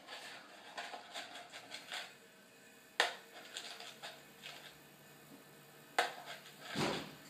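Loose screws clicking and rattling inside a small plastic tub as it is handled and searched through: a run of light ticks, then a sharp click about three seconds in and another about six seconds in, with a brief rustle near the end.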